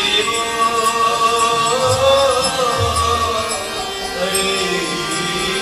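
Devotional chant-style singing with music, a voice holding long notes that slide between pitches.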